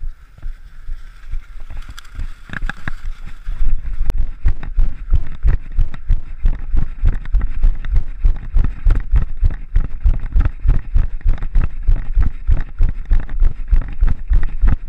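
Running footsteps on a leaf-strewn dirt trail, carried as heavy thuds through the camera worn or held by the runner. After a few quieter seconds they come in an even rhythm of about three a second from about four seconds in.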